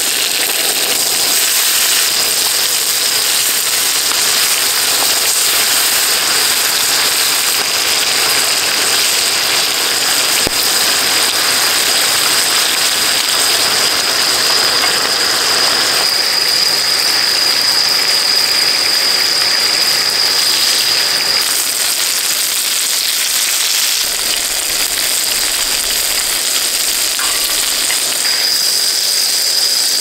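Gopchang (intestines) sizzling and spitting in a lot of rendered fat on a cast-iron griddle over a gas camping stove, a loud steady hiss. A steady high cricket trill sounds behind it, dropping out for a while past the middle and coming back near the end.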